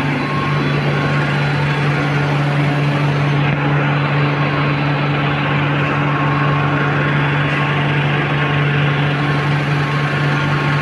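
Machinery of a breakfast-cereal extrusion line running: a steady, loud factory hum with a constant low drone and an even whirring noise over it.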